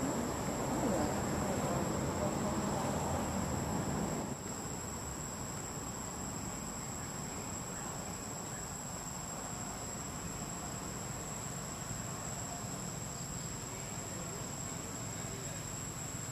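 Insects droning steadily at a high pitch. For about the first four seconds a louder, low rushing noise sits under the drone, and it cuts off suddenly.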